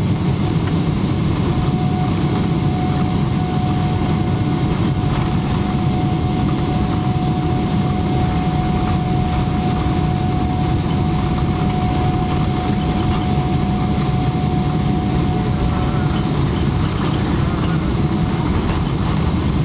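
Cabin noise of a Boeing 777-300ER taxiing, its GE90 turbofan engines running at low thrust: a steady rumble and rush with no change in power. A thin steady whine comes in about a second in and fades out near the end.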